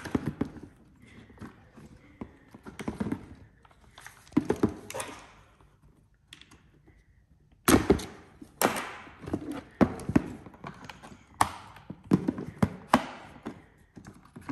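Polymer parts of a Roni pistol-carbine conversion kit handled on a wooden table: irregular clicks, knocks and clatter. There is a quiet pause about six seconds in, and the loudest knocks come just after it.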